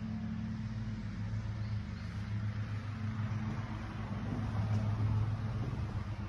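Steady low engine hum, like a motor vehicle idling, getting a little louder in the second half.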